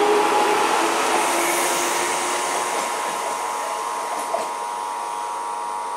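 Electric multiple unit suburban train running on the rails: a steady rolling rush with a constant whine, slowly fading.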